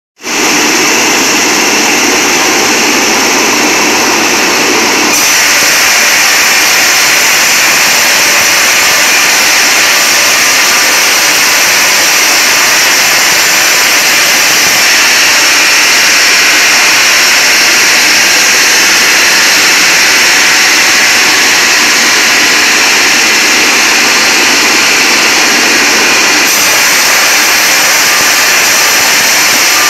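CNC log-sawing machine running loud and steady while sawing a log fed through on its carriage. The sound changes about five seconds in and again near the end.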